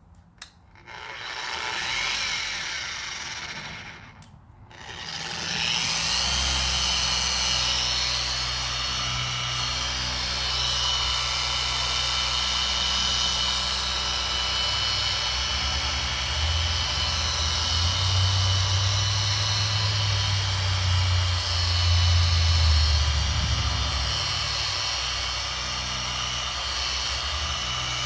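Small electric polisher running a polishing pad on a headlight lens. It runs briefly at first, then steadily from about five seconds in with a low hum and a high whine, swelling a little as it is worked over the lens.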